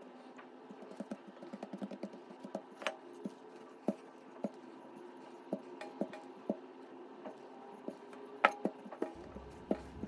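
Hands pressing and folding a sheet of buttered dough, then a wooden rolling pin rolling it out on a wooden table, giving scattered soft taps and knocks, the sharpest about eight and a half seconds in. A faint steady hum lies underneath.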